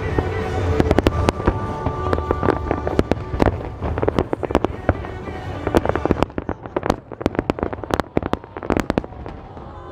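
Aerial fireworks bursting and crackling in quick succession over music played with the show. The bangs are dense in the first half and thin out to scattered crackling pops in the second half.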